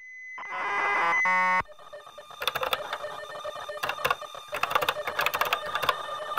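Typewriter sound effect: a swelling tone that cuts off about a second and a half in, then rapid, irregular key clicks.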